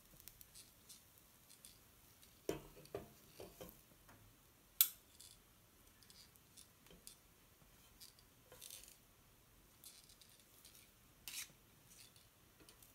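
Kitchen tongs with green silicone tips clicking and tapping lightly against a crepe pan and a bowl as cooked pancake strips are picked up, a few soft taps at a time, with one sharper click about five seconds in.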